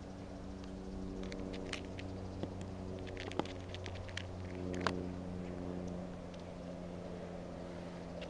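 A cat eating from a plastic tray, its chewing heard as irregular small clicks, most of them in the first half, over a steady low hum.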